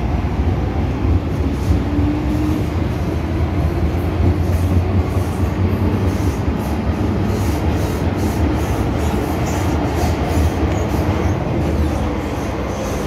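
MTR M-Train running on the Kwun Tong Line, heard from inside the car: a steady rumble of wheels on rail and running gear, with a series of faint clicks in the second half.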